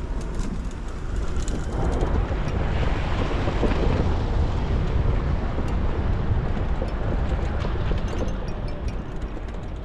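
A motor vehicle passing close by: a rush of tyre and engine noise swells about two seconds in and fades away near the end, over a steady low wind rumble on the camera's microphone.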